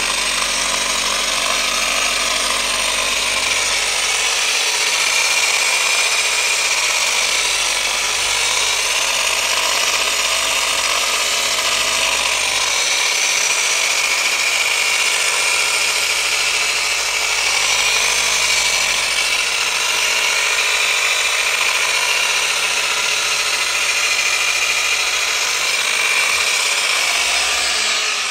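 Dual-action orbital polisher with a foam pad running steadily against a car's painted bonnet, machine-polishing scratch remover into the paint to take out swirl marks. Its pitch wavers slightly as the pad is worked across the panel.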